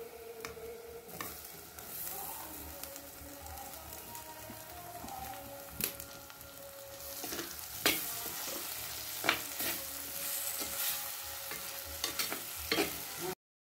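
Chopped onions, green chillies and tomatoes sizzling in oil in a clay pot while a steel spoon stirs them. In the second half the spoon clinks sharply several times.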